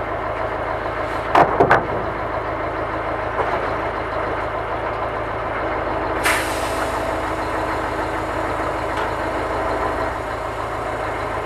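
Diesel engine of a Scania loader-crane truck idling steadily while the crane's hydraulics work the boom. Three sharp knocks come about a second and a half in, and another sharp noise comes just after six seconds.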